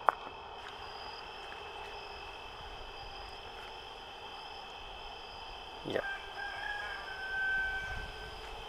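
A rooster crowing once, about six seconds in, one long wavering call of a couple of seconds, over a steady high trilling of night insects. A sharp click comes at the very start.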